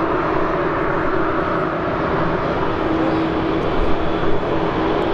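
Jet engine noise from an Embraer 190's twin GE CF34-10E turbofans as the airliner moves along the runway: a steady rushing noise with a steady hum underneath.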